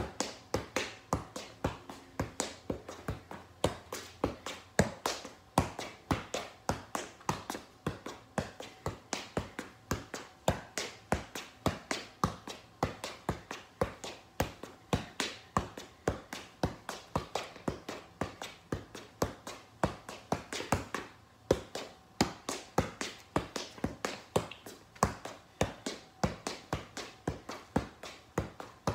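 Soccer ball being juggled: a steady run of sharp taps as the ball is kicked up off the feet and bounced off the thighs, about two to three touches a second.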